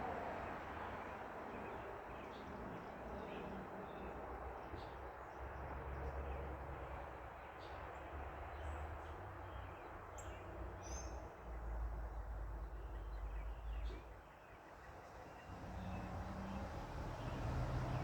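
Backyard ambience: scattered short bird chirps over a steady hiss of passing and distant traffic, with low rumbles in the middle and near the end.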